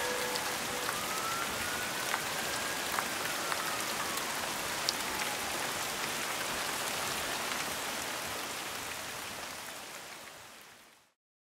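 Heavy rain falling steadily, with occasional drop ticks. It fades out near the end into silence.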